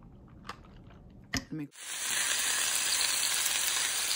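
A few faint clicks, then, just under two seconds in, a sudden start of food sizzling loudly and steadily as it fries.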